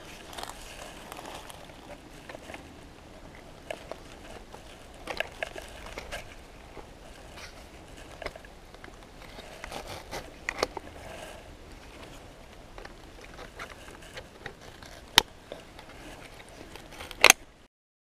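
Hands handling a plastic trail camera and its nylon strap mount, making scattered light clicks, scrapes and rustles. There is a sharp click about fifteen seconds in and a louder one near the end.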